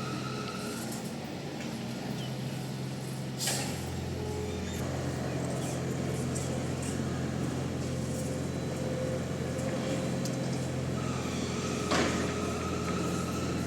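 Heavy construction machinery's engine running steadily, with a brief sharp noise about three and a half seconds in and again near the end. A faint high whine comes in shortly before the end.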